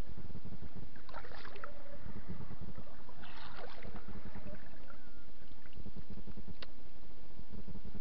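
Steady low rumble of wind and water around a small fishing boat. Short splashes about a second in and again around three to four seconds in, as a bucktail spinner is pulled through the surface beside the boat.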